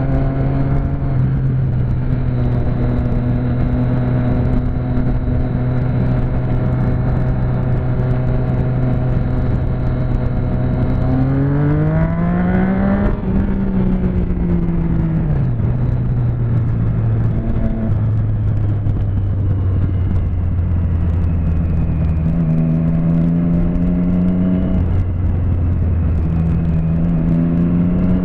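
Motorcycle engine heard from on board while riding: a steady engine note, the revs climbing about eleven seconds in and falling away a couple of seconds later, then holding lower and climbing again near the end, over steady wind and road noise.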